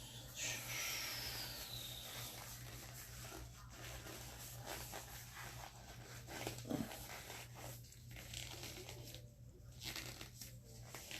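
Faint rustling and crinkling handling noises with scattered light clicks, over a steady low electrical hum.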